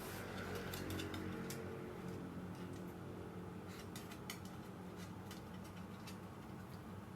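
A small dog eating, with scattered sharp clicks from its teeth and mouth as it chews, over a faint steady hum.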